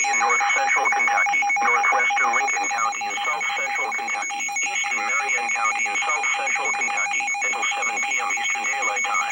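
Emergency Alert System broadcast audio: a voice reading the message, too indistinct to make out, over two steady tones, one mid-pitched and one higher.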